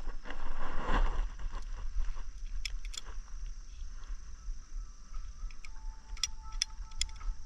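Rustling in grass, then a few sharp clicks from a handheld optical-fibre cleaver as the fibre is loaded and the clamp snapped shut, over low wind rumble on the microphone.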